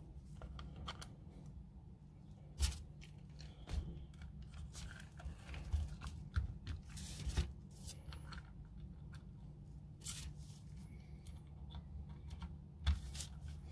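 Scattered small clicks, taps and scrapes of a screwdriver and grip screws as a grip panel is fitted and screwed onto a WE 1911 airsoft pistol frame, over a low steady hum.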